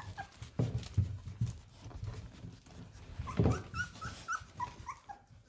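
One-week-old Golden Retriever puppies squeaking and whimpering as they crawl over each other, a run of short high rising squeaks in the second half, with a few soft knocks earlier.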